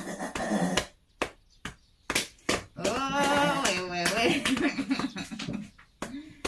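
Hand slapping rhythmically on a person's back, about two to three pats a second: chest percussion to loosen phlegm that an elderly patient cannot cough up.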